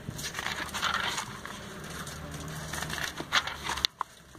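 Glossy paper catalog pages being turned, with a rustling swish in the first second or so and a few sharp paper snaps or taps near the end. A low steady hum underneath stops suddenly shortly before the end.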